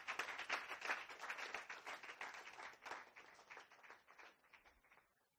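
Audience applauding. The clapping thins out and dies away about five seconds in.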